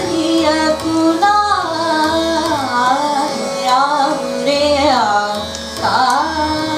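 A woman singing a Hindustani classical bandish in raag Shuddh Sarang, her voice gliding up and down through the phrases, over a steady electronic tanpura drone and an even electronic tabla beat.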